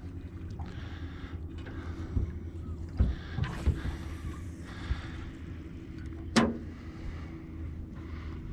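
Small boat's motor running steadily at low speed, a low, even hum, with a few knocks from the boat, the loudest a sharp one about six seconds in.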